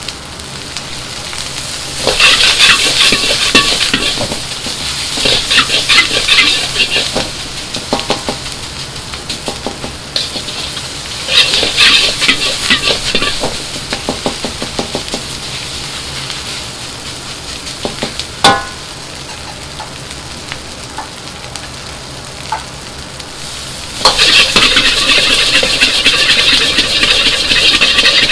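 Fried rice sizzling in a wok over a high gas flame while a metal ladle stirs and scrapes it in bursts, with one sharp ringing clank of the ladle against the wok about two-thirds through. Near the end the sizzling turns loud and steady as the rice is tossed.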